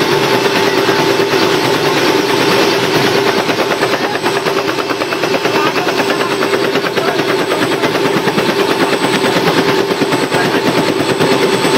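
Helicopter running close by: a rapid, steady rotor chop with a steady whine over it.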